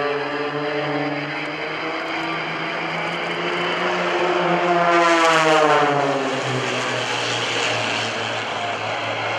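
Propeller engines of three aerobatic planes, a CAP 580, an Extra 300 and an MXS, flying past in formation. The drone grows loudest about five seconds in, and its pitch then drops as they go by.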